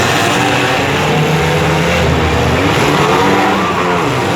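Engines of several compact demolition-derby cars running together, revving up and down in pitch.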